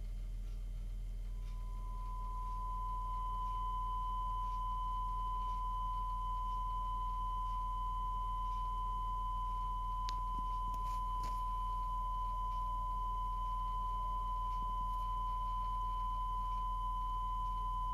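Steady single-pitch broadcast test tone accompanying the SAT 1 colour-bar test card at closedown, played back from a Video 2000 cassette on a 1982 Philips VR2023. It comes in about a second and a half in, over a low steady hum.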